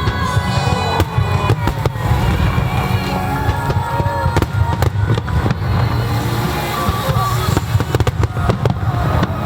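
A starmine fireworks barrage: many shells bursting in quick succession, thickest about five seconds in and again near the end. The bursts play over music from loudspeakers with a heavy bass.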